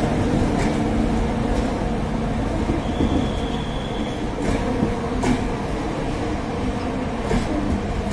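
LHB passenger coaches rolling slowly past, with a steady rumble and wheels clicking over rail joints about once a second. A brief high squeal comes from the wheels about three seconds in.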